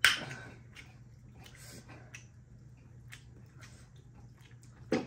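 Close-miked eating sounds: a loud slurp at the start and a shorter one near the end, with soft wet chewing, lip smacks and the squish of fingers working rice in between.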